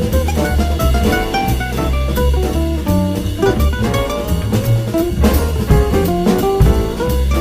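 Instrumental jazz music with drum kit, a plucked bass line and guitar, playing steadily.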